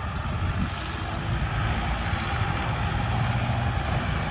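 Engine of a small tracked rice-hauling cart running steadily with a low hum as the cart drives along.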